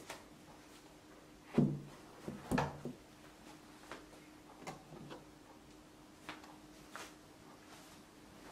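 Bamboo steamer set down on a cloth-covered table with two dull wooden thuds, the second a double knock. A few light wooden clicks and taps follow as the woven bamboo lid is handled and lifted off.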